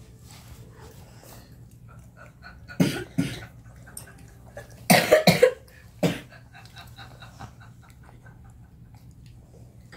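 Coughing: two coughs about three seconds in, then a quick fit of three or four coughs about five seconds in, the loudest part, and a single cough a second later.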